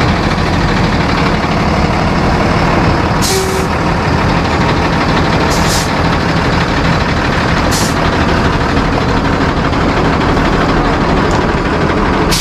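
A truck engine running steadily, with four short hisses of air from the air system: one about a quarter of the way in, two in quick succession around the middle, and one a little later.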